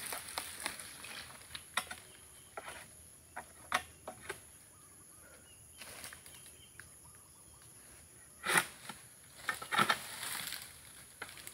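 Long pruning pole working among oil palm fronds: scattered light knocks and scrapes, with louder rustling scrapes about eight and a half seconds in and again around ten seconds. A steady high insect drone runs underneath.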